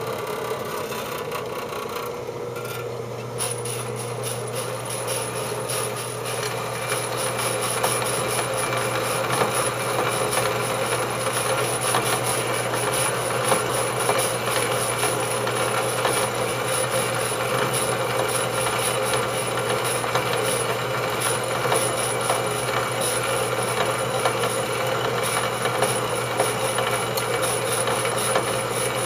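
Horizontal metal-cutting bandsaw starting up and running, its blade sawing through doubled flat steel bar under the weight of the arm. A steady motor hum comes in about a second in, with a fine, rapid rasp of teeth on steel and a high whine that joins about three seconds in.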